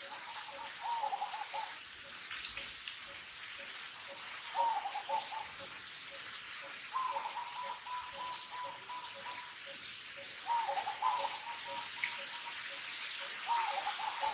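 Animal calls: a wavering, whistle-like call comes about five times, one held steady for a couple of seconds in the middle. Under it runs a faint, evenly paced pulse of two or three notes a second, over a steady hiss.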